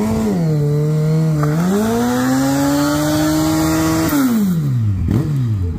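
Sport motorcycle engine revved while standing: the revs dip, then climb and hold high and steady for a couple of seconds, fall back to idle about four seconds in, and two short throttle blips follow near the end.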